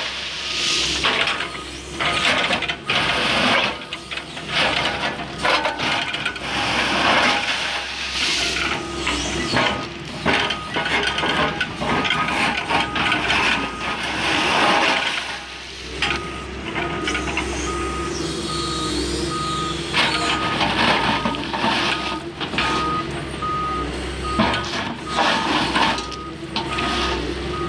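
Doosan DX140W wheeled excavator working an SRW14 railway attachment into track ballast: the engine and hydraulics run under load while the stones crunch and clatter against the blade. A warning alarm beeps over and over through the second half.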